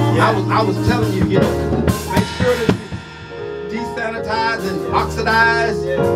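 Live church music: an electronic keyboard holding sustained chords with a drum kit beating under them, dropping back briefly about halfway, with a voice over the music in the second half.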